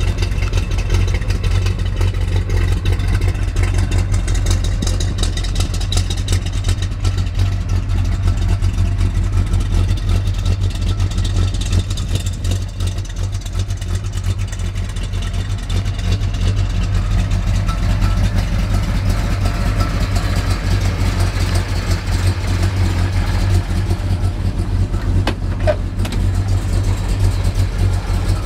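The 440 cubic-inch big-block V8 of a 1969 Dodge Charger R/T idling steadily, heard at the exhaust, its note low and even.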